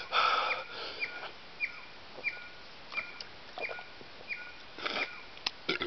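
A man breathing hard in pain from the Bhut Jolokia chilli he has just eaten, with noisy exhales at the start and again near the end. Behind the breaths, a short high chirp repeats about every 0.7 s, a small bird calling.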